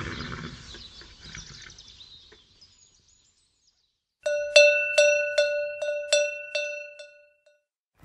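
A horse whinny sound effect fades out over the first couple of seconds. After about a second of silence, a cowbell rings in about nine quick strikes, roughly two and a half a second, each ringing briefly: the read-along's signal to turn the page.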